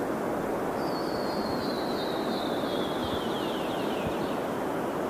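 A bird sings one long, high trill that slides steadily down in pitch, starting about a second in and breaking into separate notes near its end, over a steady rushing noise.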